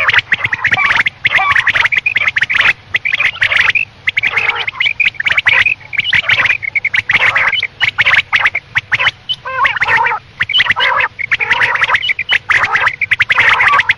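Quail calling: a dense run of rapid, short twittering notes with brief breaks, the kind of call recording played to lure quail for hunting.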